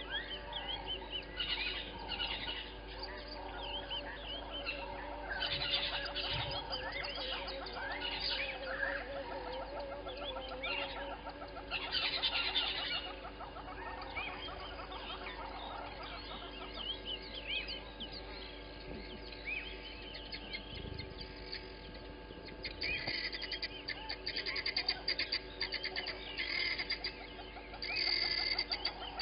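Wild birds chirping and calling, several overlapping, with a spell of rapid, harsh repeated calls near the end.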